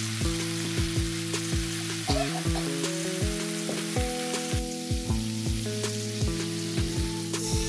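Food sizzling as it fries in a pan, with occasional stirring, under background music that has held chords and a low thumping beat about twice a second.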